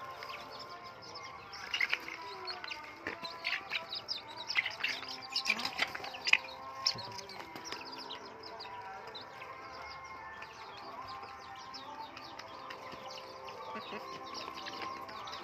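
A flock of chickens and chicks feeding, clucking and peeping, with a flurry of sharp, loud sounds from about two to seven seconds in.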